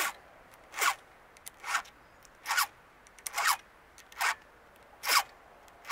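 Chainsaw file pushed through the cutting teeth of a saw chain in short, even strokes, about seven rasping scrapes a little under a second apart: the chain being sharpened by hand.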